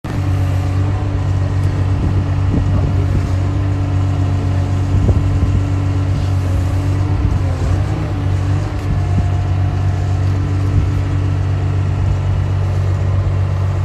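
A motor running steadily, a low even hum with a few faint knocks in the first half.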